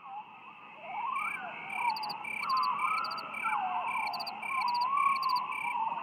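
Soundtrack of evenly repeating short chirps, about two to three a second, over warbling tones that glide up and down. The chirps come in about a second in.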